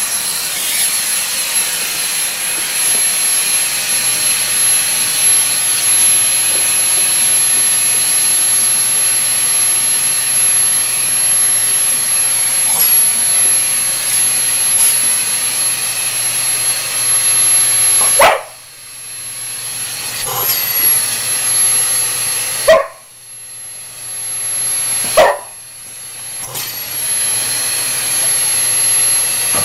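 Vacuum cleaner running steadily with a high whine while a boxer dog barks at it. The barks come in the second half: several sharp ones a few seconds apart.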